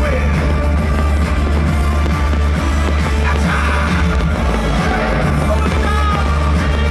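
Loud show soundtrack music with a heavy, steady bass and voices singing.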